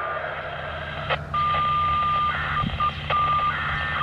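Control tones over a radio: a click about a second in, then a steady beep about a second long, short chords of tones like telephone dialing, and two shorter beeps.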